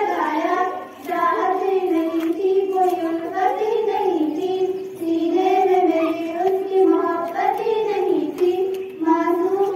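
Two schoolgirls singing a song together in one melodic line, in phrases of held notes with a short break about every four seconds.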